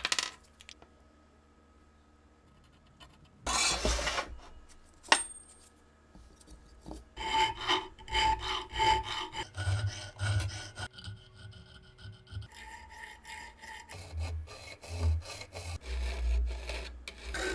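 Flat file rasping along the steel edge of a K98 bayonet blade, reprofiling the edge: one stroke a few seconds in, then a steady run of repeated strokes. A ringing tone sounds under the strokes.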